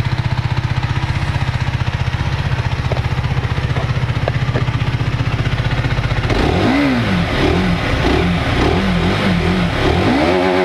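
Aprilia RS4 125 single-cylinder four-stroke engine with its stock exhaust, idling steadily with an even pulse, then revved in several quick throttle blips from about six seconds in, the pitch rising and falling with each one.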